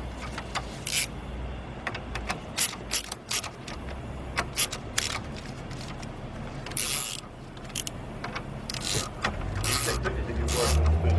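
Socket ratchet clicking in short, irregular strokes with a few longer runs, tightening the nuts on a car battery's terminal clamps.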